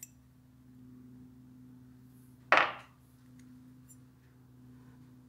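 One brief, loud metallic clack of brass tap parts being handled and turned apart by hand, about two and a half seconds in, over a steady low hum.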